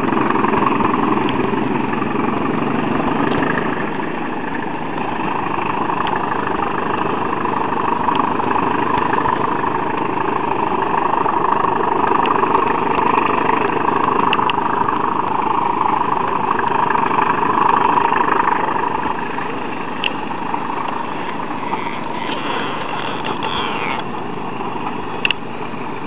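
Diesel locomotive engine running steadily, easing off a little a few seconds in and again in the last third.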